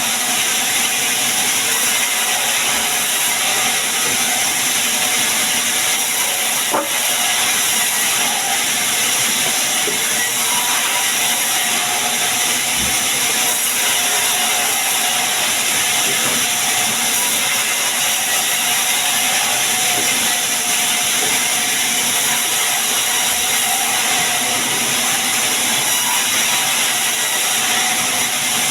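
Sawmill saw running steadily, a constant loud hissing machine noise strong in the high range, with one short click about seven seconds in.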